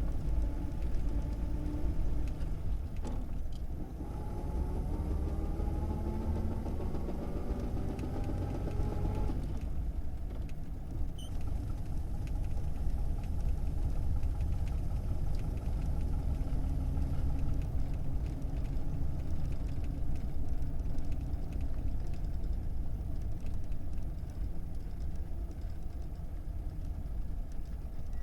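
1937 Plymouth flathead six heard from inside the cabin, pulling away with its pitch rising through the gears, with a short break near four seconds as a gear changes. About nine seconds in the climb stops abruptly and the engine settles to a steady, lower run, close to idle.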